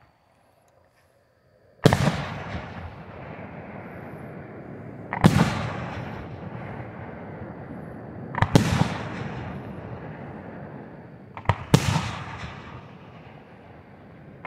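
Aerial firework shells bursting: after about two seconds of quiet, four loud booms roughly three seconds apart, the last one doubled, each followed by a long echo that slowly dies away.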